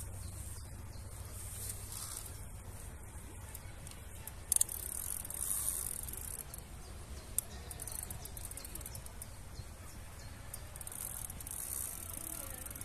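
Pond-side outdoor ambience: a high-pitched insect chorus that swells and fades in waves over a low rumble. There is a sharp knock about four and a half seconds in and a smaller click a few seconds later.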